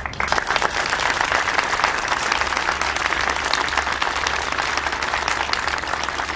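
Audience applauding, a dense steady clapping that starts right after a speech ends.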